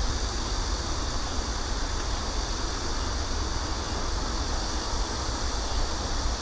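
Wind buffeting the microphone: a fluctuating low rumble over a steady hiss.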